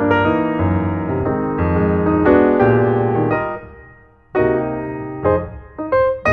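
Background piano music: gentle chords and melody notes struck one after another. Just after four seconds in the sound fades almost away before a new chord starts.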